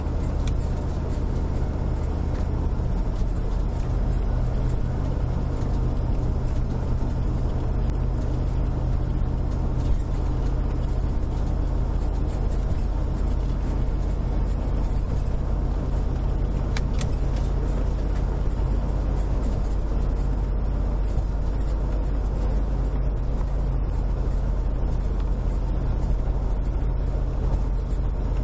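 Steady engine and road noise inside a motorhome's cab cruising at highway speed: a constant low rumble with tyre hiss above it.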